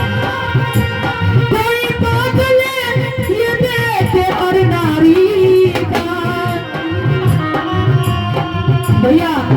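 Devotional bhajan music: a tabla-style drum rhythm under a held, gliding melody line.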